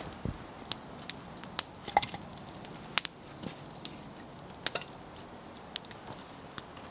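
Campfire crackling, with sharp pops at irregular intervals, the loudest about three seconds in.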